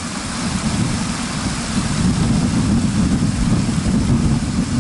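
Steady rushing of a fast-flowing stream, loud, with a low rumble underneath.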